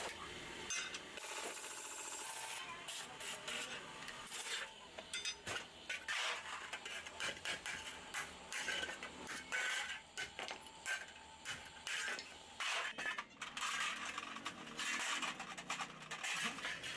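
Iron griddle (tawa) discs being scraped, rubbed and handled metal on metal: a steady rasping for the first couple of seconds, then many irregular scrapes and clinks.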